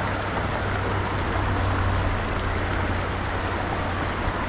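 River water rushing over rocks in a steady, even wash, with a low rumble underneath.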